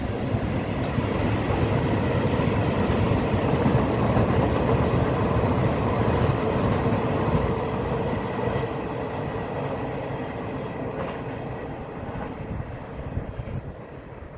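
Freight train of loaded open-top wagons rolling past on the rails, a dense steady rumble of wheels on track that fades from about eight seconds in as the train moves away.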